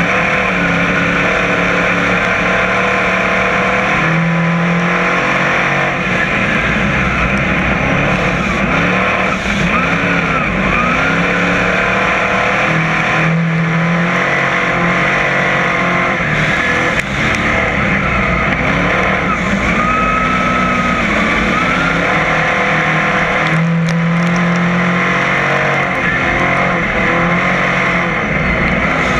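Dirt-track crate modified race car's crate V8 engine heard loud from inside the cockpit, running hard under racing load. Its pitch rises and falls again and again as the throttle comes on and off through the laps.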